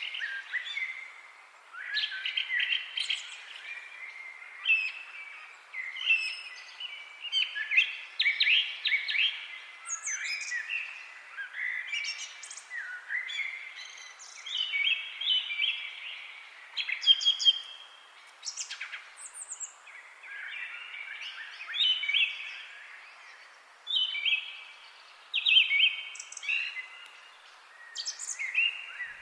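Several songbirds singing and chirping, with phrases following one another every second or two.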